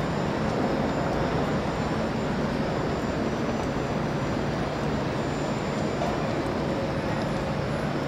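Steady city street noise: a constant rumble of distant traffic with a faint low hum underneath.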